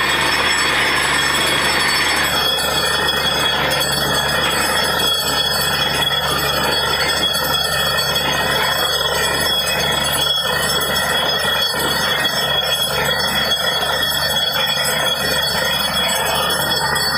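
Borewell drilling rig running steadily while water gushes and splashes out of the top of the casing pipe: the newly drilled borewell has struck water and is yielding.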